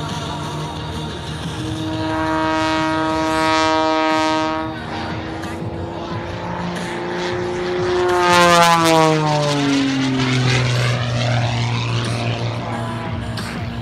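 Extra 330SC aerobatic plane's six-cylinder Lycoming engine and propeller, its pitch changing with power through the manoeuvres. It drops back a little under five seconds in, then swells to its loudest and falls steeply in pitch as the plane sweeps past, settling into a lower steady drone.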